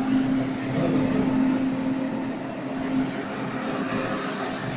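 Cleanvac SC 42 carpet-scrubbing machine's electric motor and rotating brush running with a steady hum.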